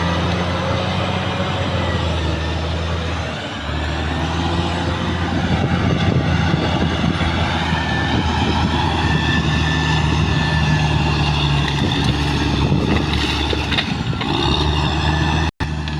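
Caterpillar D6R XL bulldozer's diesel engine running under load as it pushes earth, with a steady low drone under a rush of noise and a wavering high squeal over it. The engine note drops briefly a few seconds in, and the sound cuts out for an instant near the end.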